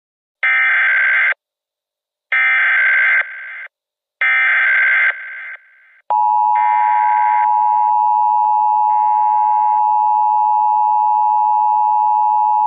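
Emergency Alert System tones: three short bursts of SAME digital header data, about a second each with a fainter echo trailing each one, then about six seconds in the steady two-tone EAS attention signal starts and holds.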